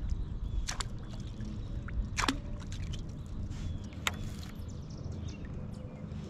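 Water lapping and trickling around a kayak hull over a steady low rumble. Three sharp clicks come through it, the first within a second, then about two seconds in and about four seconds in.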